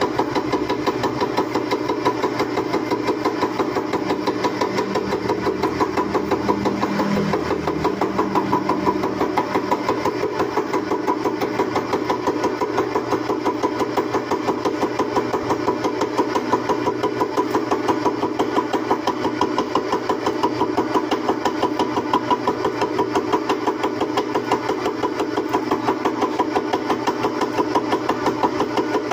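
Milling machine running steadily, its small cutter working a steel mold plate, with a regular pulse of about three beats a second.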